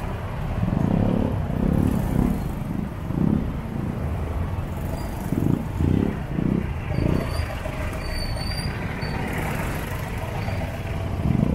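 Motorcycle riding in slow town traffic: steady engine and road noise with an uneven low rumble that swells and fades every second or so.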